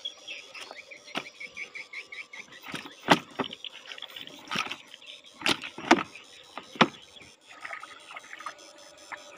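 Freshly caught catfish and other river fish being handled and flopping in a plastic tub: a string of sharp slaps and knocks, loudest in the middle few seconds, over a faint steady hum.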